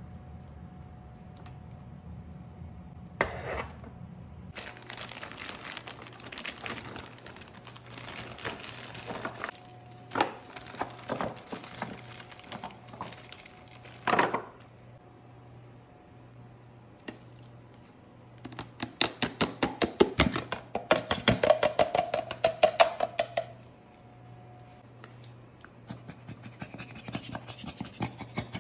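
Kitchen prep sounds around a disposable aluminium foil pan: plastic packaging crinkling and rustling, scattered knocks on the foil, and, past the middle, a rapid clatter of small food pieces tumbling into the pan.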